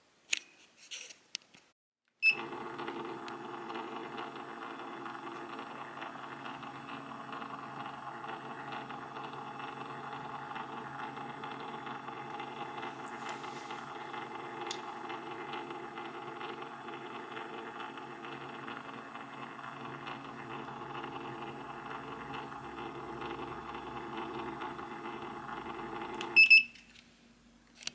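A steady mechanical hum made of several held tones. It switches on with a click about two seconds in and cuts off with a click near the end.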